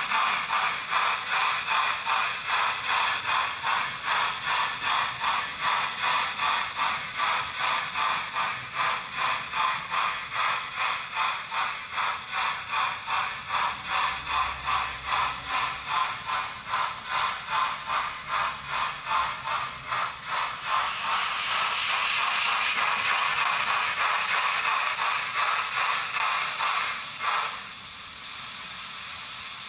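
Model steam locomotive running sound: steady rhythmic chuffing at about three beats a second. Near the end the beats merge into a steady hiss, which cuts off suddenly and leaves a quieter hiss.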